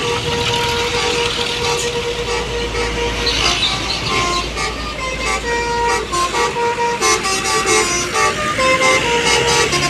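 Telolet basuri musical bus horn playing a tune of stepped notes, the notes coming quicker in the second half, over a low rumble.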